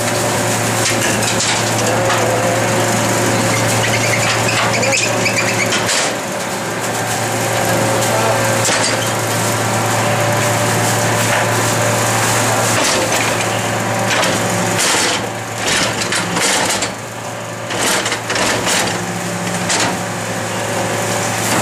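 Rear-loading garbage truck running with a steady low hum from its engine and packer drive, while plastic wheeled bins are tipped into the hopper by the bin lifter. Rubbish crunches and clatters as it is dumped and compacted, with irregular knocks and bangs, busiest in the second half.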